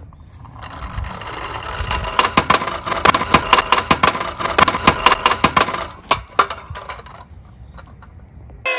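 Toy police van rolling down a board slope and tumbling over, a rapid run of clattering knocks against the board that stops about six seconds in, with a couple of last knocks as it comes to rest.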